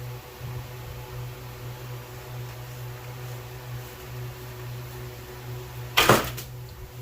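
Steady low hum throughout, and about six seconds in one loud, brief scrape-and-knock while sand is brushed off a freshly poured silver sand casting.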